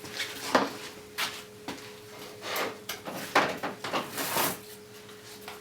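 Scattered light knocks, clicks and rustles of objects being handled and set down on a workbench, over a faint steady hum.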